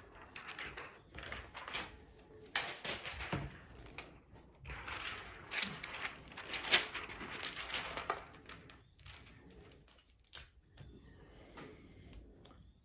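Handling noises from a laptop's plastic screen parts: irregular rustling and scraping with scattered clicks, including one sharp click partway through, then quieter fiddling near the end.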